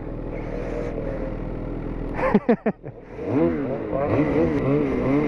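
Snowmobile engines. One runs steadily at first, then about two seconds in comes a few sharp throttle blips, and after that the engine revs up and down in quick waves as the throttle is worked.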